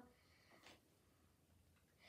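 Near silence: room tone, with a faint click a little over half a second in.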